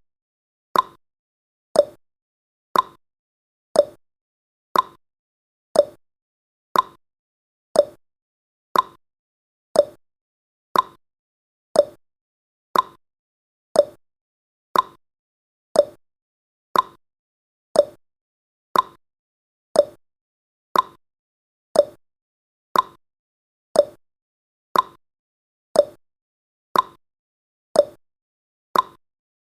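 Clock ticking sound effect marking the seconds of a countdown timer: one sharp tick a second, alternating higher and lower in pitch as a tick-tock.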